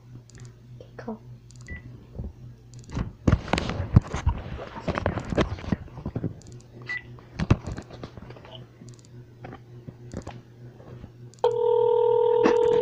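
Mobile phone being handled, with short keypad clicks and rustling bumps. About eleven seconds in, a steady ringback tone starts from the phone's earpiece speaker: the outgoing call is ringing.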